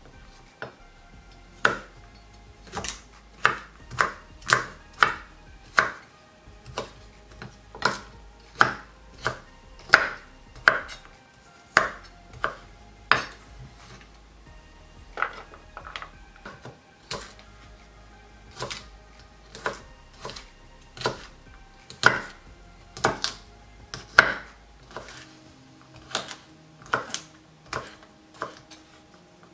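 Kitchen knife chopping sweet potato peels on a wooden cutting board: sharp, irregular knocks of the blade against the board, about one or two a second.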